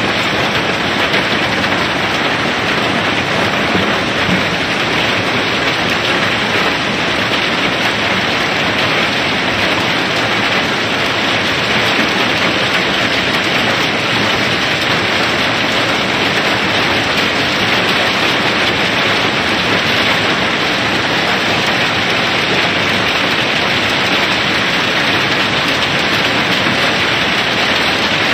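River pebbles pouring down through a barge's unloading opening in a steady, dense rattle, like heavy rain.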